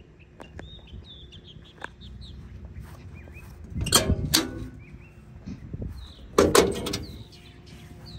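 Steel toolbox compartment door on a wrecker body being unlatched and swung open: two loud, ringing metal clanks, one about halfway through and another about two seconds later. Birds chirp in the background.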